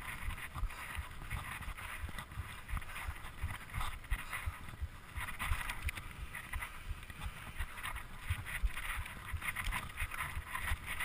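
Mountain bike ridden fast over a dirt trail: wind buffeting the camera microphone in irregular low gusts and thumps, over a rough hiss of tyres on dirt and the bike rattling over bumps.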